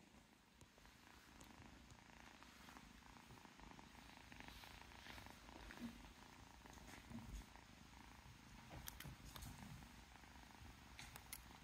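Kitten purring softly and steadily while being brushed, with a few faint clicks near the end.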